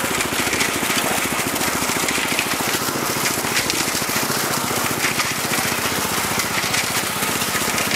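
Portable concrete mixer running steadily with a fast, even mechanical rhythm, its drum tipped to pour out wet concrete.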